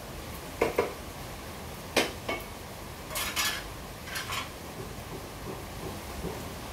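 Hard objects clinking and clattering off to the side: two quick knocks just under a second in, another pair about two seconds in, then two short rattling scrapes.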